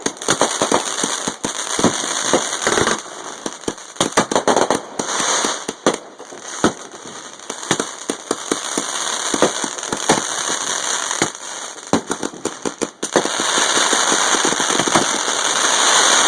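Fireworks grand finale: a rapid barrage of aerial shell bursts and crackling, bangs coming many times a second. For the last few seconds it merges into a dense continuous rush of crackle.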